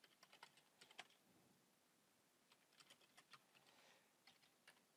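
Faint computer-keyboard typing: scattered keystrokes, with a pause of about a second and a half in the middle.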